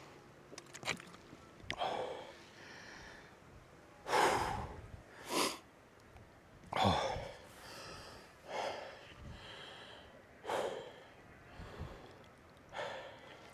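A man breathing hard from the exertion of a steep uphill climb, with about seven heavy, noisy breaths, one every one to two seconds.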